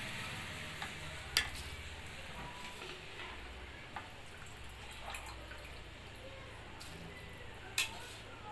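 Jaggery water bubbling at the boil in a steel pot. A few sharp clicks cut through it, the loudest about a second and a half in and near the end, as rice is tipped in.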